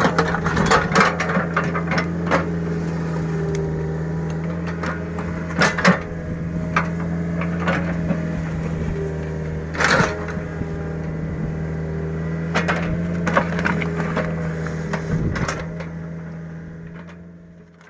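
A small excavator's diesel engine running steadily, with scattered sharp clanks and knocks from the working machine. The sound fades out near the end.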